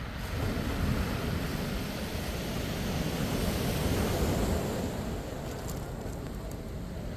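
Mediterranean surf breaking and washing on the shore, swelling about a second in and again midway, with wind buffeting the microphone.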